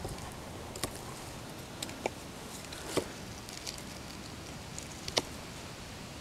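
Condor Kephart carbon-steel knife cutting a notch into a small green stick: a few faint, scattered clicks and short cuts of the blade biting into the wood, the sharpest about three seconds and five seconds in.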